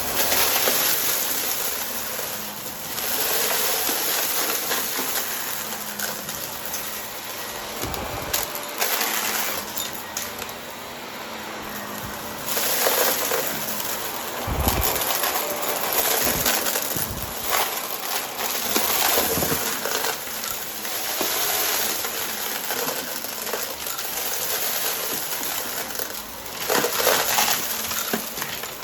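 Vacuum cleaner with a spinning brushroll sucking up crunchy debris: a steady high hiss of rushing air with many rattling, crackling pickups that swell and fade in passes.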